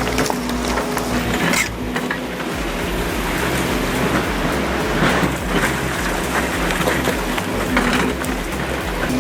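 Heavy earthmoving machine working, a steady engine hum under a dense, rough noise.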